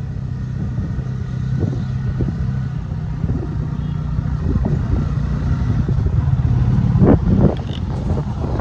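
Motor vehicle engine running steadily on the road, with a low hum and a few knocks and rattles, the loudest about seven seconds in.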